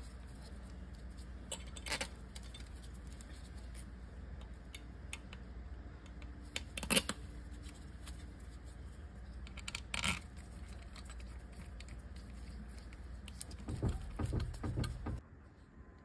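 Small steel bolts clinking as they are picked up and set by hand into a transmission valve body: a few sharp, separate metallic clicks spaced seconds apart over a steady low hum that stops near the end.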